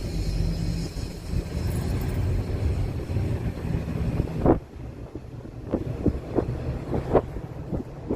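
Boat engine running with a steady low hum, with wind buffeting the microphone. About halfway through, the hum drops away, leaving short gusty bumps of wind on the microphone.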